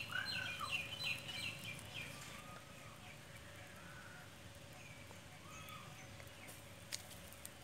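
Birds calling in short chirps, busiest in the first two seconds and then sparser, with a single sharp click near the end.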